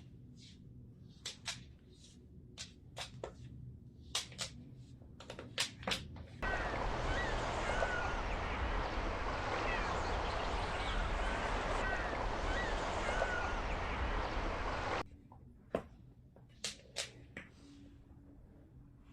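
Sharp, irregular clicks and taps of an alligator snapping turtle's claws on the floor as it walks. About six seconds in, a loud steady hiss with a few faint high chirps cuts in. It stops abruptly about eight seconds later, and the scattered clicks return.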